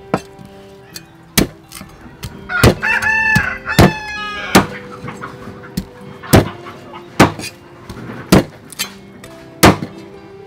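A cleaver chops through pork ribs on a thick round chopping block: about ten sharp, hard chops, roughly one a second. A rooster crows in the background at about two and a half to four seconds in.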